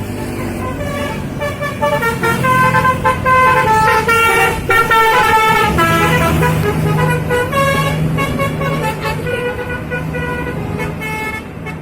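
A bus's telolet horn playing a fast melody of short tooting notes that step up and down in pitch, over the steady low drone of the bus engine.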